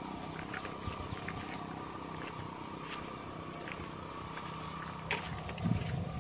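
Insects chirping in a steady high chorus that pulses slightly, over a faint low hum. There are scattered light clicks, and a soft low thump comes near the end.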